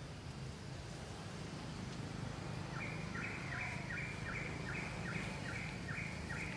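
Forest background noise with a steady low hum. From about three seconds in, a bird calls a fast, regular series of short high notes, about three a second.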